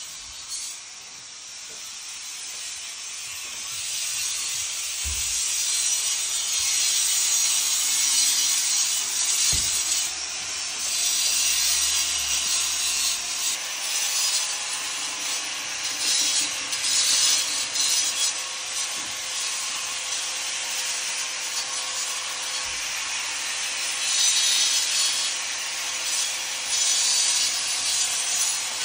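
Handheld angle grinder cutting out the mortar joints of brickwork, a steady gritty grinding hiss that surges a little as the tool is worked along the joints. It is quieter for the first few seconds, then runs louder.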